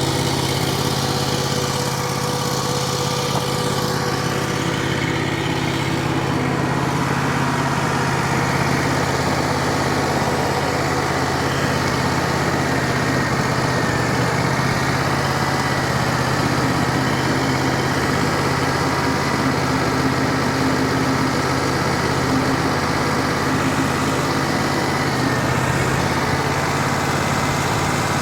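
Wood-Mizer LT35 portable sawmill's engine running steadily at an even level.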